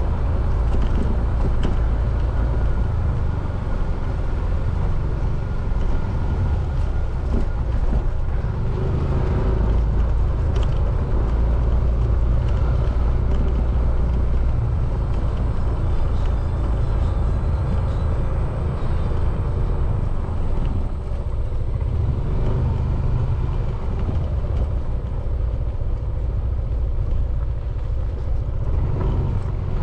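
Motorcycle engine running at low riding speed, a steady low rumble that rises and falls a little, with wind and road noise on the camera's microphone.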